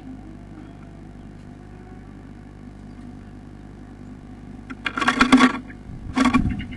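Two loud bursts of scratching and scrabbling on the wooden nest box, about a second apart, over a steady low hum.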